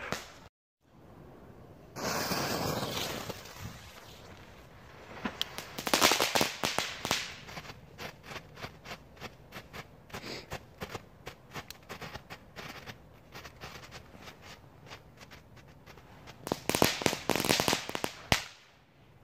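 Small category 1 consumer firework going off: a hiss lasting about two seconds, then sharp crackling snaps, dense at first, thinning to a scattered run of single cracks, with another dense flurry of crackles near the end.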